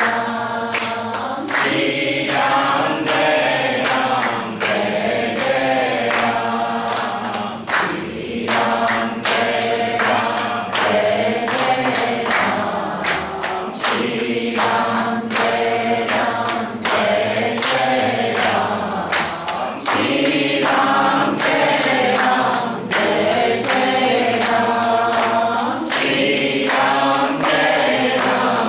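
Group of men and women singing a Hindu devotional bhajan together, with rhythmic hand clapping keeping time.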